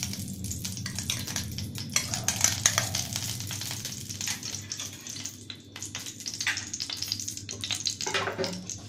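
Cumin seeds sizzling and crackling in hot oil in a frying pan: a dense run of small pops over a hiss, loudest two to three seconds in, with a low steady hum underneath.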